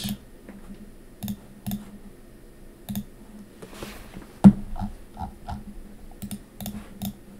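Scattered clicks of a computer keyboard and mouse, about seven over the stretch, with one sharper, louder knock about halfway through.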